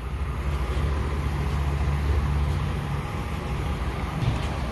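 Pickup truck's freshly rebuilt engine idling with a steady low rumble; the owner says it badly needs a tune.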